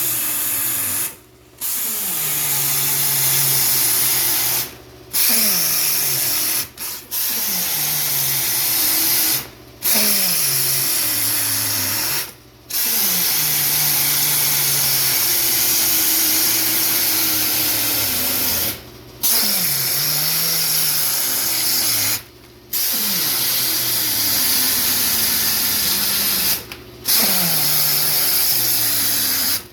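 A handheld power tool for stripping waste from die-cut corrugated cardboard runs in spurts of a few seconds, stopping briefly about nine times. It has a hissing whir, and its hum sags in pitch just after each restart before settling.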